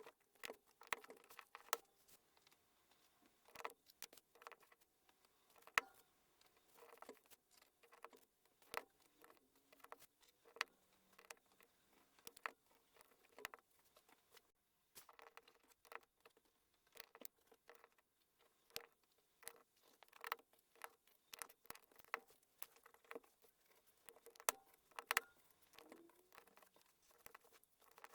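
Small plastic LEGO pieces clicking and rattling as they are handled and snapped together, in an irregular run of sharp, light clicks.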